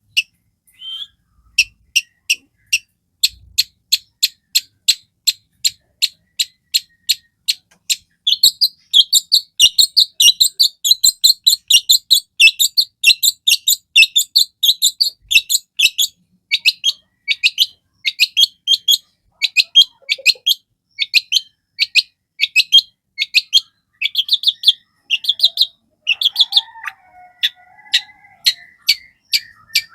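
Long-tailed shrike (cendet) singing: a run of sharp, high notes, about three a second. About eight seconds in it breaks into a dense, fast chatter for several seconds, then returns to spaced sharp notes.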